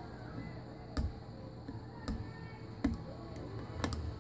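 Four sharp clicks, about a second apart, over a steady low hum.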